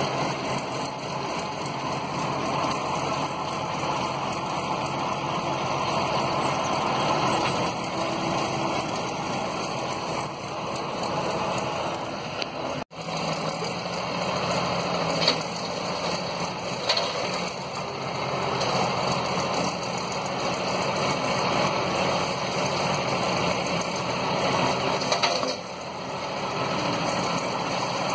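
Schlüter Super 1250 tractor working an ELHO Tornado chain flail mulcher through grass and brush: engine and spinning flail rotor running steadily under load, with a few short sharp cracks in the second half. The sound cuts out for an instant about halfway.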